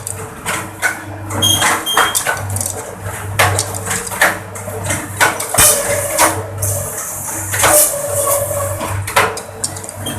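Bamboo skewer machine (slicer and planer) running: a steady motor hum under irregular sharp clacks and clatter of bamboo pieces.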